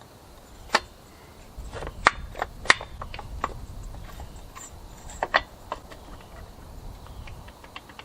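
Irregular clicks and knocks of hand tools and small metal parts being handled as a chainsaw is reassembled, over a low rumble of handling and rubbing.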